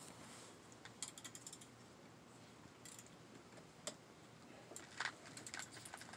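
Faint, scattered light clicks and taps of hand work in a car's engine bay: a quick run of clicks about a second in, single ticks a little later, and another cluster near the end.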